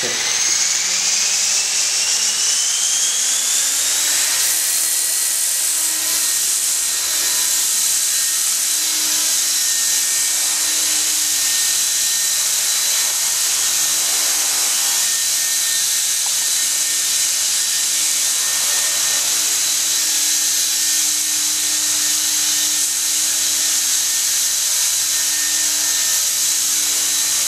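Small RC helicopter spooling up, its motor and rotor whine rising in pitch over the first four or five seconds, then hovering with a steady high whine and rotor hiss.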